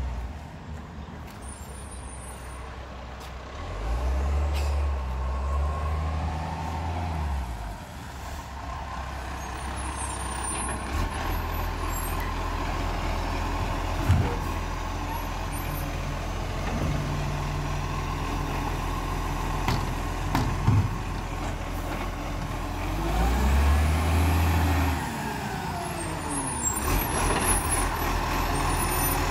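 Iveco Acco side-loader garbage truck's diesel engine running as it drives up and pulls in to the kerb, the engine note rising and falling twice as it comes on. A few brief sharp knocks are heard along the way.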